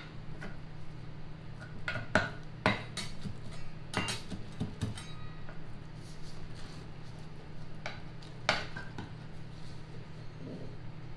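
A metal knife and spatula clinking and scraping against a glass baking dish as a baked pudding is cut and a slice lifted out: irregular sharp clicks, most of them between about two and five seconds in, with two more near eight seconds. A steady low hum runs underneath.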